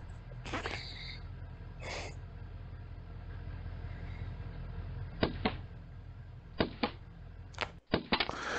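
A military truck's engine runs low and steady. From about five seconds in come several sharp cracks in quick succession: rifle bullets striking the truck's side window.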